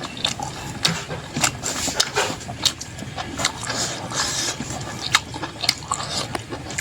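A person chewing food close to the microphone, open-mouthed, with many irregular mouth clicks and smacks.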